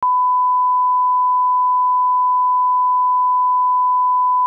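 Steady 1 kHz line-up reference tone, the audio half of a 'bars and tone' test signal at the head of a video master, used for setting audio levels. It is one unwavering pitch held at a constant level.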